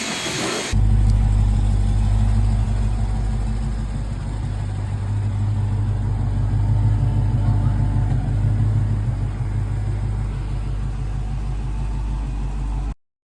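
An engine idling steadily. It comes in suddenly about a second in and cuts off abruptly near the end.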